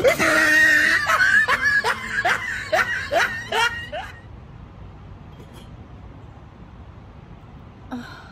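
A woman's surprised cry, then a run of short, rising, squealing laughs for about four seconds, after which only a faint steady hiss remains.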